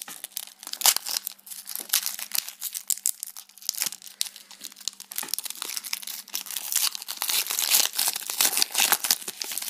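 Foil wrapper of a Pokémon TCG booster pack crinkling and tearing as it is opened by hand, a dense run of sharp crackles throughout.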